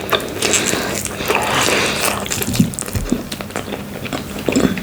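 Close-miked chewing and biting: wet, clicky mouth sounds of someone eating khinkal, boiled meat and dough.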